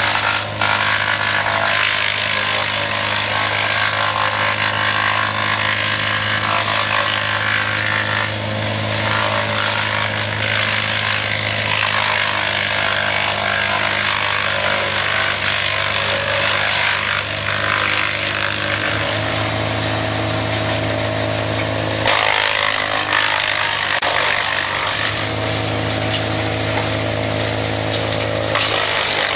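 Morbark Beever M8D disc brush chipper running and chipping brush and branches: a steady drone from the engine and spinning chipping disc under a constant noisy crackle of wood being cut. The drone changes a few times in the second half as material feeds through.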